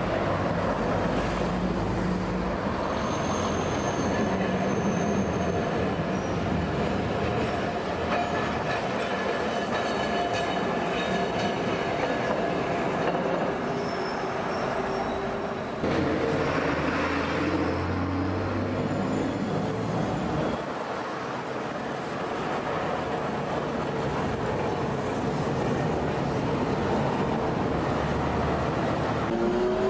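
Streetcars running on street-level track amid city traffic, with a steady rumble of wheels and motors and buses passing. Thin, high wheel squeals rise a few times. About halfway through, the sound changes abruptly.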